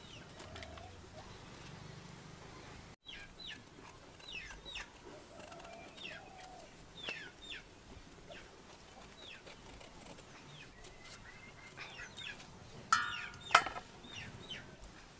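Domestic chickens calling in the background: repeated short, high, falling chirps, and one loud squawk a couple of seconds before the end.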